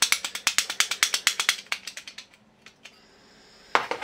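Plastic keys of a BTTB/Zeuke model-railway switching keypad being flicked in quick succession, a rapid run of sharp clicks for about two seconds that fades out. A single louder knock near the end.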